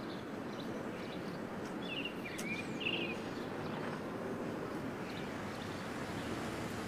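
Steady outdoor background noise, with a few short bird chirps about two to three seconds in.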